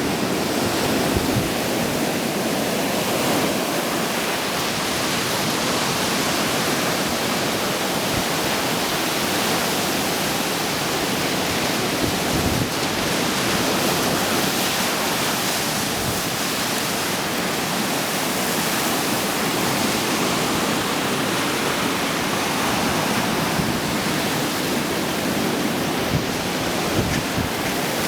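Stormy Black Sea surf, a continuous steady rush of breaking waves and churning water.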